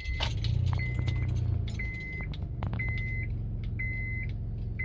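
Honda car engine starting and idling, a little louder for the first second and a half before settling to a steady idle. A dashboard warning chime beeps about once a second over it.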